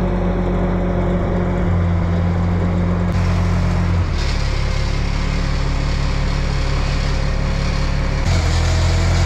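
Forklift engine running steadily under load as it creeps forward carrying an engine on its forks. Its tone shifts in steps several times as the throttle changes.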